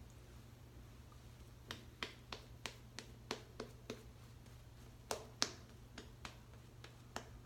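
An irregular series of short, sharp light clicks or taps, about fifteen of them, starting nearly two seconds in, with the two loudest a little past the middle.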